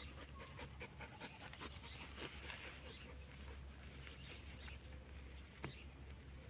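A dog panting softly close by, with a steady high chirring of crickets behind it.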